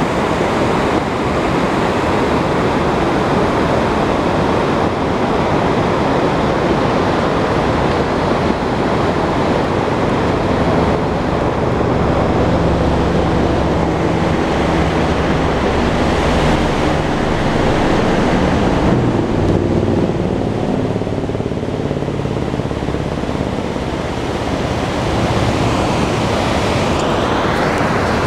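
Steady rush of a fast-flowing mountain river over rocks, a constant loud hiss of water, with some wind on the microphone.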